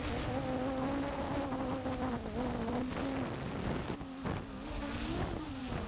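Quadcopter drone's motors and propellers humming, the pitch wavering and dipping now and then as it manoeuvres.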